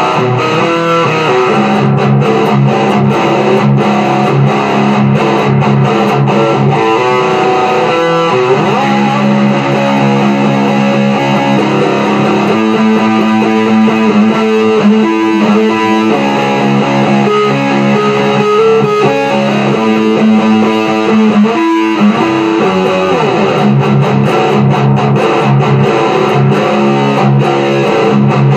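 Les Paul-style electric guitar playing a riff with a crunchy overdriven tone: quick picked notes for the first several seconds and again near the end, with held chords and single notes in between.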